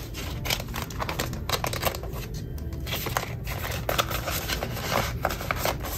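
Paper and plastic rustling with many light, irregular clicks as cash envelopes, bills and the plastic pages of a ring binder are handled and turned.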